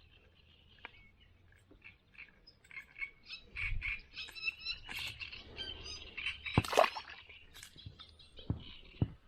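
A run of short chirping animal calls, thickest in the middle, and a single sharp knock about two-thirds of the way in.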